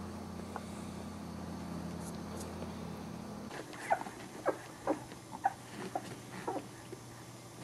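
Young Boxer puppy whimpering: a string of short, high squeaky cries starting about four seconds in. Before them a steady low hum cuts off suddenly.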